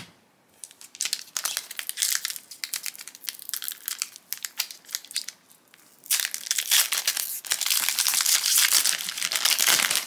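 Foil booster-pack wrapper being crinkled and torn open by hand: a sharp click at the start, rapid crackling, then denser, louder crinkling from about six seconds in.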